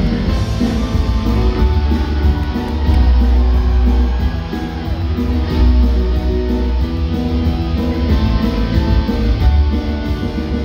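Loud music with guitar over a heavy bass line.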